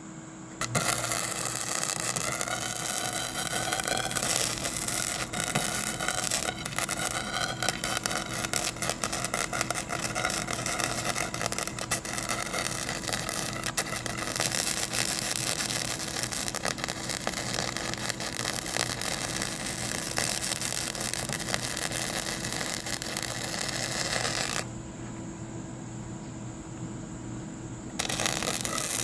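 A motor-driven machine running, noisy and rattling, with a whine that rises and falls in pitch in the first few seconds. It stops about 25 seconds in and starts again about three seconds later.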